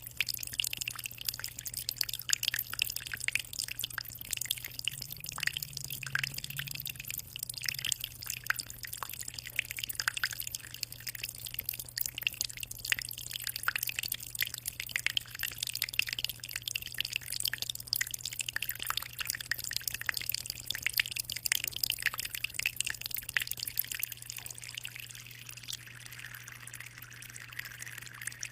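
Aquarium water trickling and splashing, a dense patter of small drips and splashes over a steady low hum. Near the end it settles into a smoother hiss.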